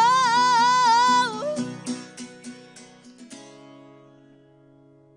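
A woman's voice holding a last sung note with vibrato over acoustic guitar, then a few strummed guitar chords and a final chord that rings out and fades away: the end of a song.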